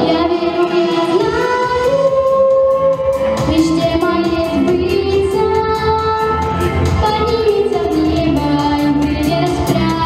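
A girl singing a song into a handheld microphone, amplified through PA speakers, over instrumental accompaniment with a steady beat; she holds long notes with vibrato.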